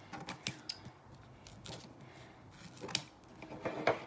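Scissors snipping rubber bands off a rolled canvas tube: a handful of short, sharp snips, the loudest near the end.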